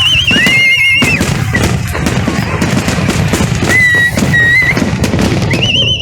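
Fireworks bursting, with many sharp bangs and crackles over a constant rumble, and high whistling tones that glide up and warble at several points.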